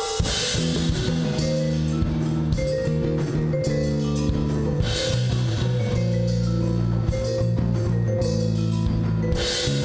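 Live percussion-ensemble music: electric bass holding long low notes under a drum kit, with a mallet keyboard struck with yarn mallets and cymbals washing out about every four to five seconds.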